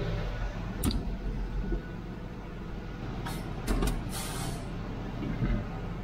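Tractor diesel engine running steadily, heard from inside the cab, with a few sharp clicks and one short hiss about four seconds in.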